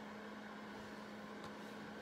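Steady low electrical hum with hiss: room tone, with one faint tick about one and a half seconds in.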